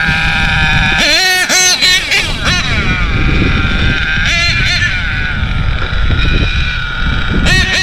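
HPI Savage X4.6 RC monster truck's nitro engine running at high revs, its pitch jumping up and falling back in quick throttle blips about a second in, at about four seconds, and again near the end, with a steady high whine between.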